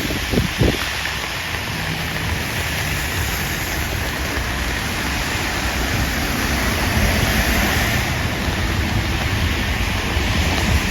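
Steady hiss of rain and tyres on a wet street, with a few brief low bumps of wind on the microphone about half a second in.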